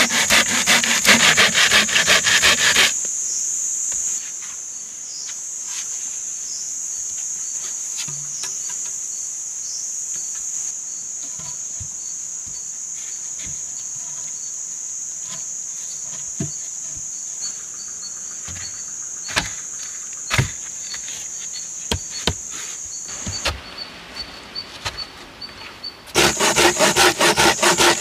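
A folding pruning saw cutting through a green log with quick back-and-forth strokes, which stop about three seconds in. Insects then drone steadily with a high-pitched buzz, and a few knocks of wooden logs being set in place are heard. Near the end, the saw blade works rapidly along a log again.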